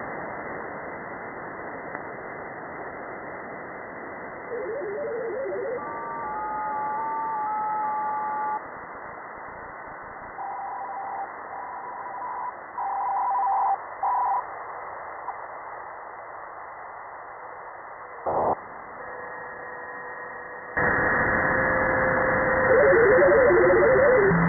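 Amateur radio receiver tuned across the 20-metre band: a steady hiss of band noise, with short whistling tones from signals passing through as the frequency changes. There is a brief crackle about three-quarters of the way in, and the hiss then grows louder, with a warbling tone near the end.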